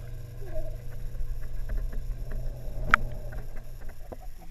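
Hot tub's jet pump running with a steady low hum while the water churns, with one sharp click about three seconds in.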